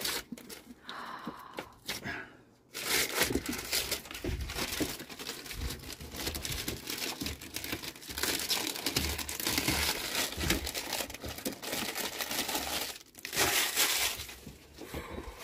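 Clear plastic wrapping being crumpled and pulled off a new stainless steel gas hob: a dense, crackly crinkling that starts about three seconds in and runs on, with a short break near the end before one more burst.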